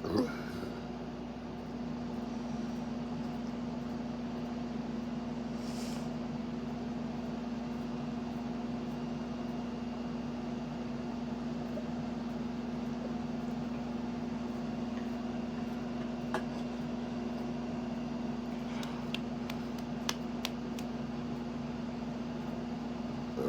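Steady machine hum with a constant low tone throughout. A short pitched sound comes right at the start, and a few faint clicks follow in the second half.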